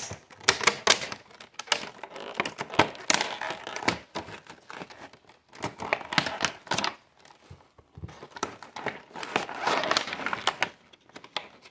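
Clear plastic blister packaging crackling and crinkling as it is handled and turned over: a run of sharp, irregular clicks and crackles, with a short lull about eight seconds in.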